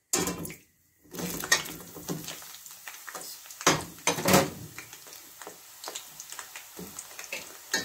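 Green brinjal (eggplant) wedges deep-frying in hot oil in a steel pan: a steady sizzle with scattered clinks and scrapes against the pan. A brief silence comes just after the start.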